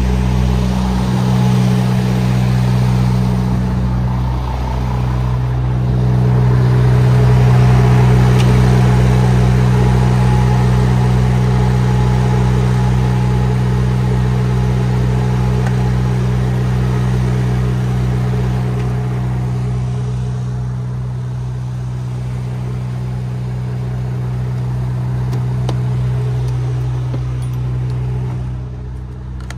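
Truck's diesel engine idling steadily, a low even hum that eases slightly near the end.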